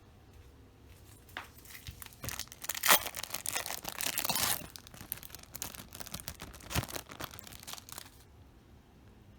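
Plastic packaging being crinkled and torn by hand, in irregular bursts. It is loudest about three seconds in and stops about eight seconds in.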